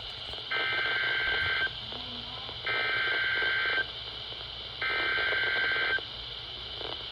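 Three bursts of Emergency Alert System SAME digital data from a NOAA Weather Radio broadcast, each about a second long with about a second's pause between, over steady radio hiss. The three data bursts are the coded header that opens a new weather alert.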